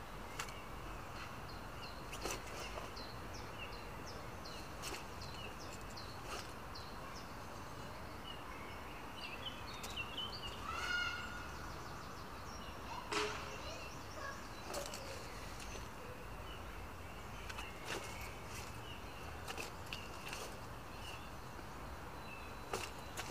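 Small birds chirping and singing in woodland over a steady low background rumble, with scattered sharp clicks. A louder run of descending notes comes about ten to eleven seconds in.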